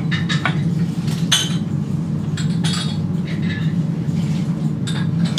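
Utensils and dishware clinking several times while a dish is plated, the sharpest clink about a second in, over a steady low kitchen hum.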